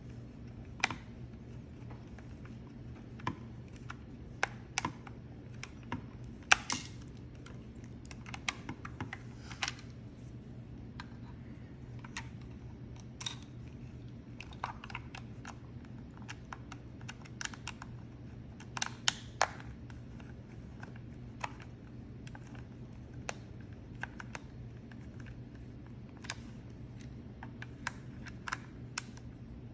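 Scattered small clicks and taps of an Xbox One controller's plastic shell and parts being handled and fitted back together, at irregular intervals, over a steady low hum.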